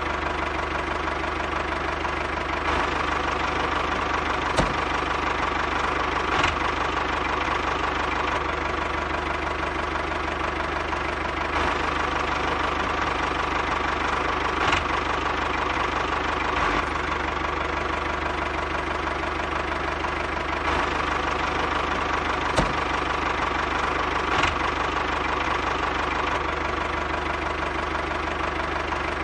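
Miniature DIY model tractor running steadily with a small engine-like drone, with a few short clicks along the way.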